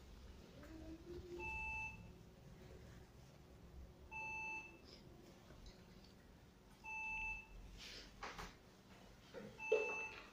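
An electronic beep repeating at an even pace, about once every three seconds, four times: each a short steady tone with bright overtones. A brief clatter comes just after the third beep.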